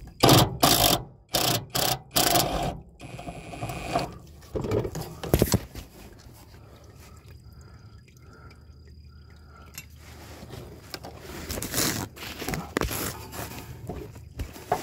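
Cordless power ratchet run in short bursts, about five in the first three seconds, backing out the bolts of a TorqueFlite transmission's tailshaft housing. It goes quieter in the middle, then runs in a few more bursts near the end.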